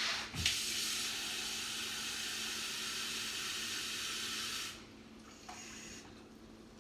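Kitchen tap running steadily for about four seconds, filling a glass measuring cup with water, then shut off.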